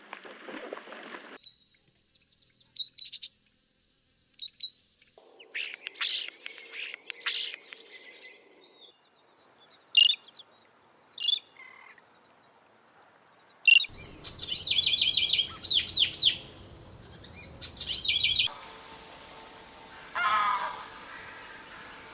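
Calls and songs of several different wild birds: short high chirps, whistled notes and trills, in separate recordings that change abruptly every few seconds.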